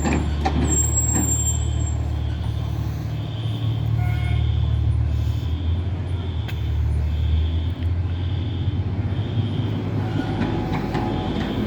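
Fire engine's diesel engine idling with a steady low hum. Over it, a building fire alarm beeps in an even repeating pattern.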